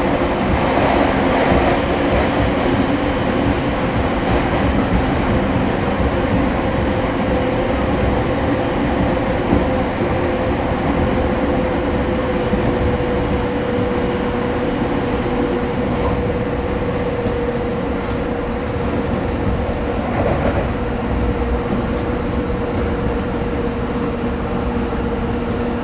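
Interior running noise of a JR East E231 series electric commuter train: a steady rumble of wheels on rail, with a thin whine that slowly drifts lower in pitch.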